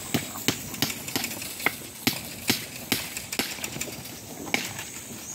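Zebu cattle grazing close by, tearing off mouthfuls of grass: a string of sharp, short rips at an uneven pace, about two to three a second.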